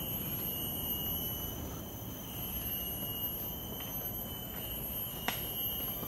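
Steady high-pitched drone of rainforest insects: several shrill tones held together over a faint background hiss, with one sharp click about five seconds in.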